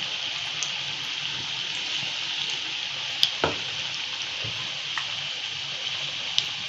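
Onion bhaji (kanda bhaji) fritters deep-frying in hot oil: a steady sizzling hiss with a few sharp pops, the loudest about three seconds in. They are frying on their first side, just after being dropped into the oil.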